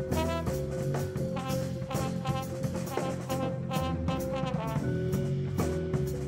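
Live jazz band playing: trombone phrases over electric bass and a drum kit, with short repeated notes and frequent drum and cymbal strokes.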